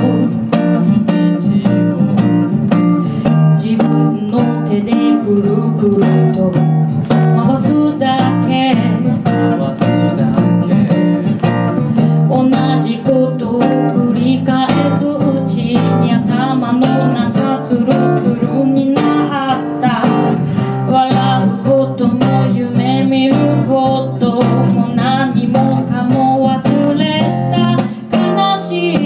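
Live song: an acoustic guitar playing accompaniment while a woman sings into a microphone.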